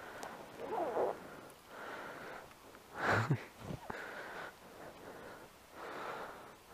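A person breathing close to a microphone, a puff of breath about every second or so, the strongest about three seconds in.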